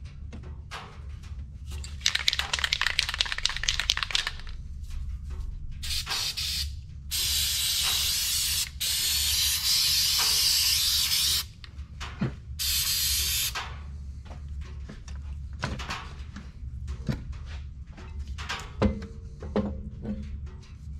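A spray hissing in long bursts: the longest runs about four seconds from seven seconds in, another about a second long follows, and a fainter hiss comes earlier. This is the driveshaft yoke being sprayed clean. Short clicks and knocks of handling are scattered around the bursts, over a steady low hum.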